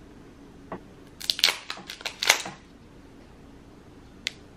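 A second-generation Apple Pencil is handled against an iPad Air and set onto its magnetic side edge, making sharp plastic-and-glass clicks and taps. There is a single tick, then a quick run of loud clicks starting about a second in, and one more sharp click near the end.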